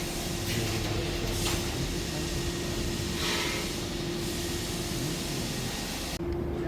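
A loud, steady rushing hiss that cuts off abruptly near the end, over a constant hum.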